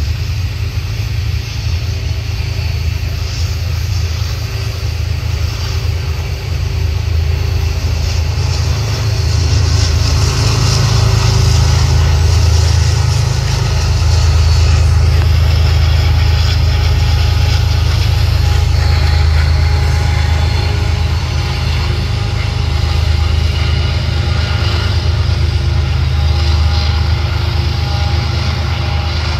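BNSF diesel-electric freight locomotive going by with its train, its engine a deep steady drone. The drone swells to its loudest about halfway through as the locomotive passes closest, then eases off.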